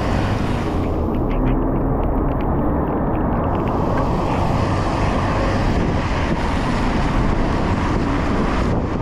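Steady, loud wind rumble buffeting the microphone of a moving bicycle, mixed with road noise on a wet road.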